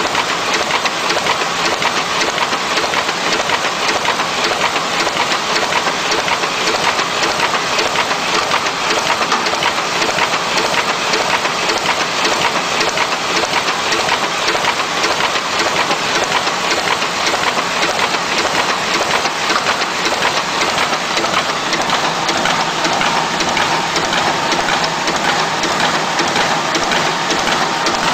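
Small sheet-fed offset printing press running at speed, a steady fast mechanical clatter of its rollers and sheet-handling grippers as paper feeds through.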